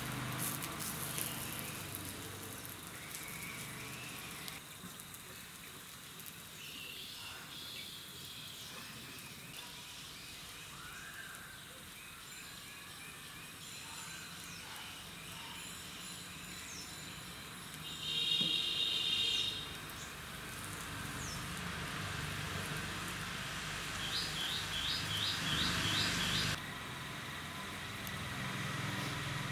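Birds calling: a short buzzy call about two-thirds of the way in and a quick run of about six high chirps near the end, over faint outdoor ambience. A soft sizzle of roti dough on a hot oiled griddle fades in the first few seconds.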